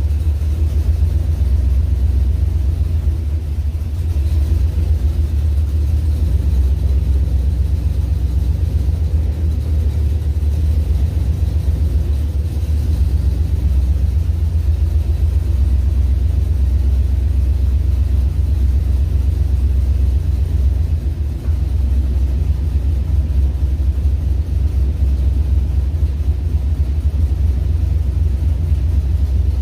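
Pickup truck engine running, a steady low rumble.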